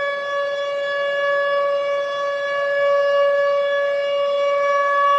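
Detroit Vipers' 1995–96 IHL hockey goal siren sounding a single steady tone, held at one constant pitch.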